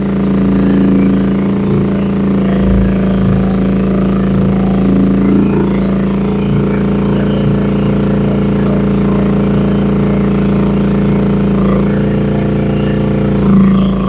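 Rippa R10 one-ton mini excavator's gasoline engine running steadily at raised throttle, driving the engaged hydraulic pump while the boom and arm are worked.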